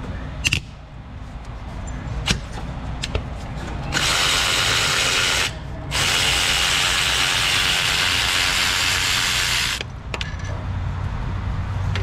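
Cordless electric ratchet running in two stretches, about a second and a half and then about four seconds, backing out an alternator mounting bolt. A few sharp clicks come before it starts.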